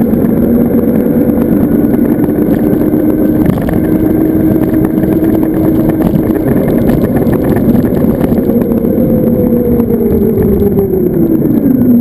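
Wind and road noise rushing over the microphone on a moving Zero FX electric motorcycle, with the electric drive's steady whine underneath. The whine falls in pitch over the last few seconds as the bike slows.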